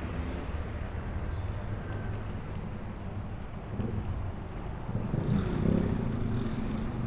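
Road traffic: motor vehicles running close by, with wind rushing over the microphone while riding. The engine noise swells louder about five seconds in as a vehicle draws near.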